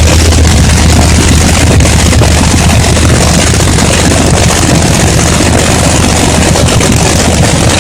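A loud engine running steadily, with a deep, even hum under a wide rushing noise that neither rises nor falls.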